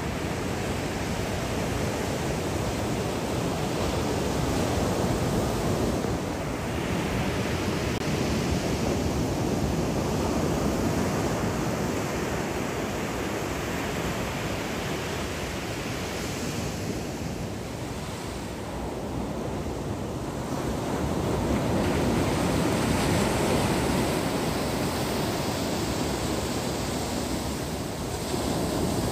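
Small ocean waves breaking and washing up the beach: a continuous rushing of surf that swells and eases every several seconds.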